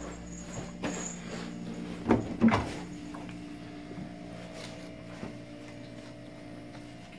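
Two sharp knocks in quick succession about two seconds in, as a wooden kitchenette cabinet door is opened, over a steady low hum.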